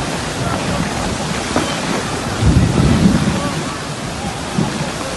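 Heavy rain pouring steadily in strong wind, with a louder low rumble about halfway through.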